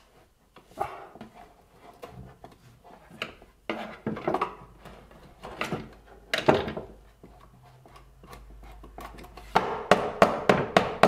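Blue plastic old-work electrical box knocking and scraping against a wooden cabinet panel as it is fitted by hand into its cutout, the loudest knock about two thirds of the way through. Near the end comes a quick run of sharp clicks.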